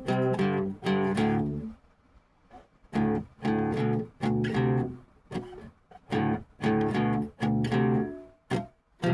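A guitar strumming chords in short, separate strokes with no singing. The chords pause for about a second near the two-second mark, then resume in a steady rhythm.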